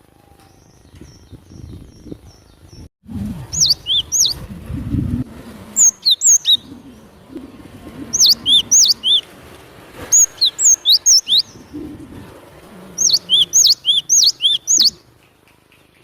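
Gelatik batu (cinereous tit) singing its lure song: about five short phrases of quick, high, sharp whistled notes, each phrase a few notes long, with pauses of a second or two between them.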